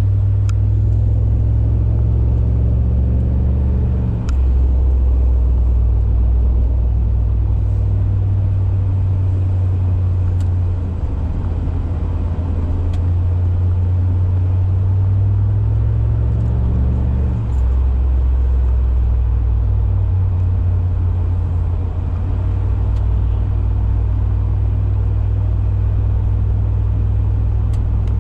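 Low exhaust drone heard inside the cabin of a 2002 Cadillac DeVille with a Thrush welded performance exhaust and a resonator delete, its 4.6-litre Northstar V8 pulling steadily on the road. The low note steps down in pitch about four seconds in and again around seventeen seconds in.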